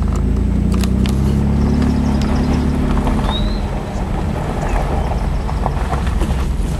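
2007 Pontiac G6 GT's 3.5-litre V6 running through a GT-R aftermarket exhaust, heard from inside the cabin while pulling uphill under moderate throttle. The engine note rises slightly over the first three seconds, then becomes less even.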